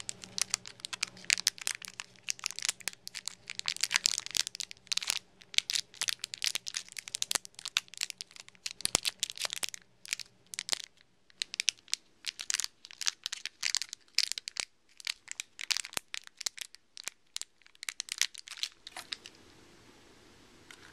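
Crinkly blind-bag packaging being squeezed and felt through by hand to make out the figure inside, in irregular bursts of crackling that stop about two seconds before the end.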